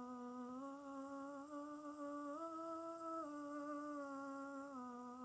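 A man's voice singing a sustained open vowel through a slow stepwise scale exercise, without a break. It rises two steps to a top note held just under a second, then steps back down.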